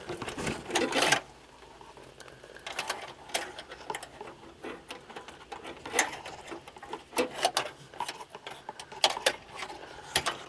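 Wire clothes hanger scraping and clicking against metal and plastic as it is worked through the channel behind the grille, fishing for the hood latch lever. Irregular clicks and scrapes, busy in the first second, then a pause of a second or two before they pick up again.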